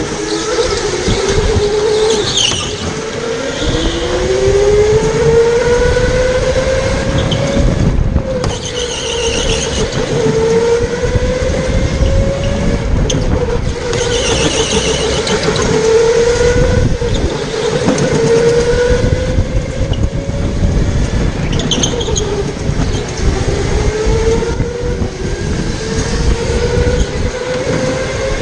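Go-kart motor whine that rises in pitch again and again as the kart accelerates out of each corner, with short tyre squeals in the turns over a steady rumble of wheels on the track.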